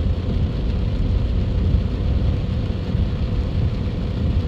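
Steady low rumble inside a moving car's cabin in heavy rain, with the hiss of tyres and rain on the wet road.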